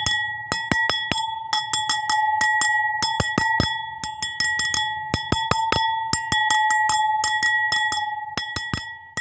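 A bowl struck over and over in quick clusters of taps, about one cluster a second, each tap sharp over a steady, bell-like ringing note that carries on between them.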